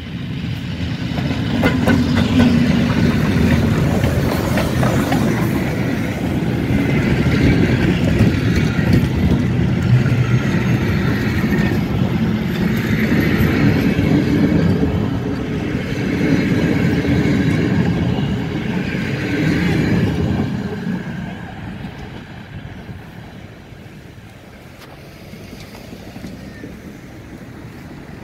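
Steam-hauled passenger train passing close by: old carriages rolling past with the rumble and clatter of wheels on rails. It is loud until about twenty seconds in, then fades as the train moves away.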